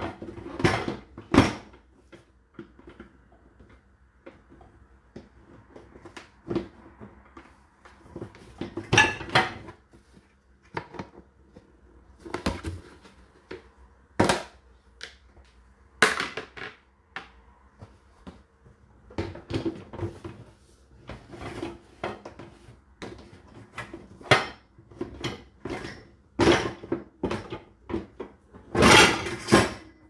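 Irregular knocks, clicks and clattering at uneven intervals, with a faint steady hum underneath.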